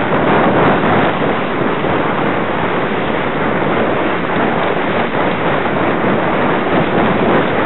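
Steady rushing noise of a sledge sliding fast down a snow run, the sliding over snow mixed with wind on the microphone.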